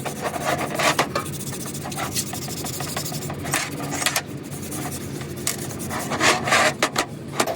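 Irregular rasping, rubbing strokes of hand tool work on a workpiece, over a low steady hum.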